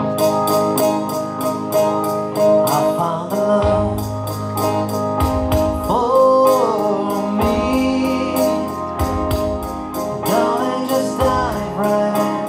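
Background music: a slow song with guitar and singing, starting abruptly after a short dip in level.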